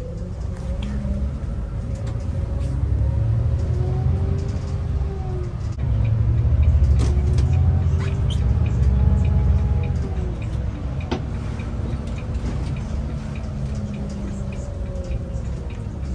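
Bus drivetrain heard from inside the cabin while driving: a heavy low rumble under a whine that rises and then falls in pitch as the bus speeds up and slows. It is loudest in the middle, with a few sharp rattles.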